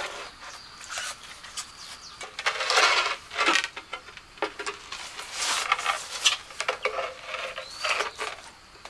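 Irregular scraping and sharp clicking of hand work with hard materials, with louder scrapes about three seconds in and again around five to six seconds.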